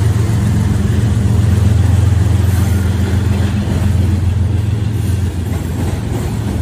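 Freight train passing close by: autorack cars rolling past with a steady rumble and rail noise over the low drone of its diesel locomotives pulling away. The sound eases off slightly near the end.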